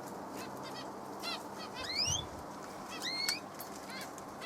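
Small aviary bird giving rising whistled calls about every second or so, with quick chirps in between: a parent bird calling for its fledgling.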